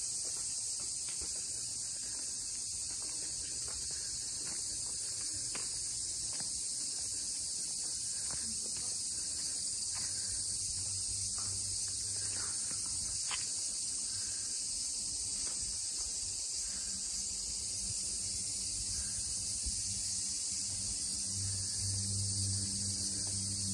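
Steady high-pitched insect chorus in summer greenery, with faint short chirps and ticks here and there. A low hum comes in about halfway and grows stronger near the end.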